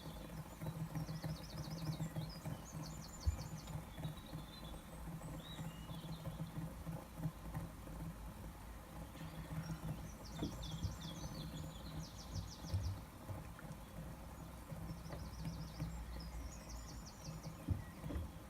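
Birdsong: short, rapid trills repeated in pairs every few seconds, over a faint, steady low hum.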